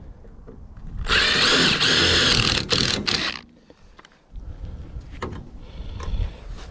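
Power drill running in one burst of a little over two seconds, stopping briefly twice near the end, drilling out aluminum rivets. A few light knocks and handling noises follow.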